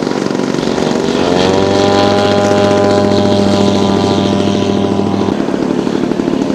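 Radio-controlled scale model aircraft engine running: its pitch rises about a second in, holds a steady high note, then drops back about five seconds in.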